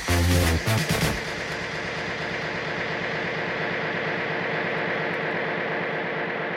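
Electronic dance music that stops about a second in, then a steady, evenly pulsing mechanical drone like a running engine.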